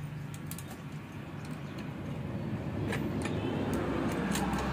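Light metallic clicks and rattles of a saw chain being handled as it is threaded onto a chainsaw guide bar, over a low rumble that grows louder in the second half.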